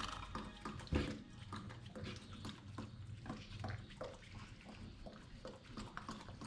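Newborn greyhound puppy making short squeaks and grunts, a few a second, with a louder one about a second in.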